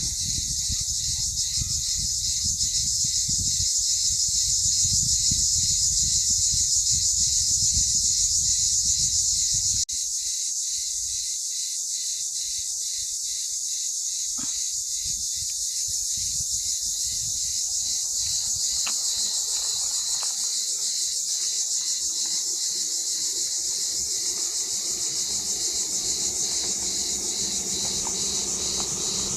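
Insects, such as crickets or cicadas, calling in a dense, continuous high-pitched chorus with a regular pulsing rhythm. Low rumble sits under it for the first third and stops abruptly.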